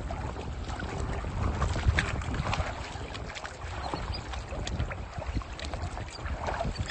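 Seawater sloshing and splashing around people wading through the shallows while hauling a fishing net, with a low rumble of wind on the microphone.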